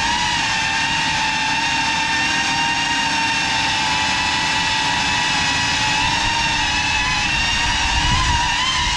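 GEPRC Cinelog 35 6S cinewhoop drone's motors and propellers whining at a nearly steady high pitch as it cruises. A short low rumble swells about eight seconds in.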